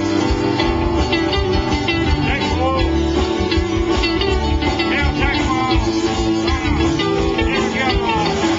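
Live rock band playing an instrumental passage: electric and acoustic guitars over electric bass and a drum kit, steady and loud.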